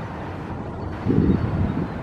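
Low, steady outdoor vehicle rumble with wind buffeting the microphone, and a louder gust of buffeting about a second in.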